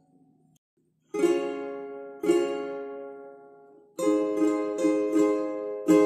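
Ukulele with a capo on the first fret, strummed in chords. A previous chord fades out and there is a second's pause, then two single down-strums about a second apart ring out. From about four seconds in comes a quicker run of up-and-down strums.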